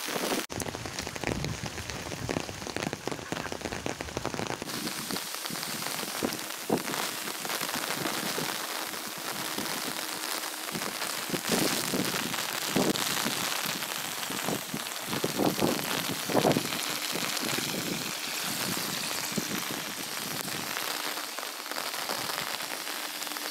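Rain falling steadily, a continuous hiss with a few brief louder swells.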